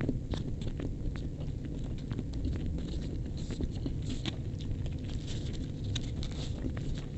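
Close-miked eating sounds: a metal spoon clicking and scraping in a styrofoam box of fried rice, and chewing. A string of short irregular clicks over a steady low hum.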